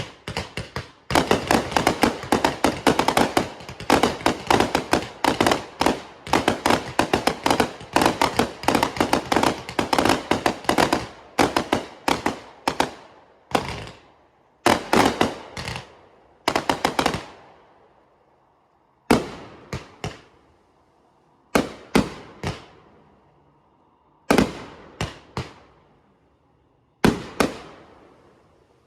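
Fireworks going off: a dense, rapid string of bangs for about twelve seconds, then bangs in short groups of two to four every few seconds, each dying away in an echoing tail.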